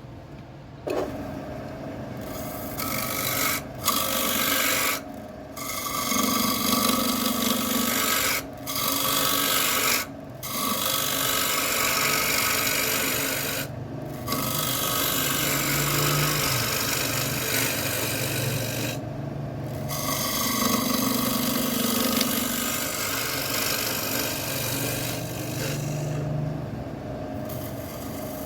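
A spinning wooden bowl blank on a wood lathe being worked, giving a rasping scrape in long passes broken by several short pauses, over the lathe motor's steady hum.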